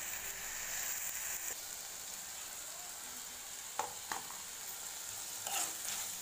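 Chopped ridge gourd sizzling steadily in a metal kadai, cooking down with oil and a little water. About four seconds in, the ladle knocks twice against the pan.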